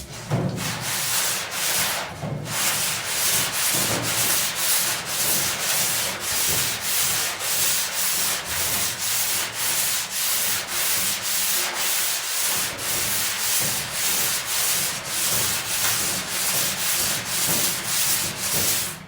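Hand sanding on a car's steel roof panel: steady back-and-forth rubbing strokes, about two a second, that stop near the end.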